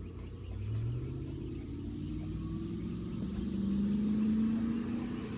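A vehicle engine speeding up, its low hum rising steadily in pitch and getting loudest about four seconds in.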